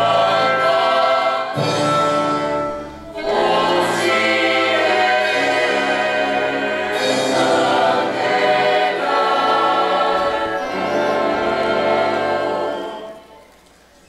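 Choir singing with orchestral accompaniment in long held chords; the sound dips briefly about three seconds in and fades away near the end.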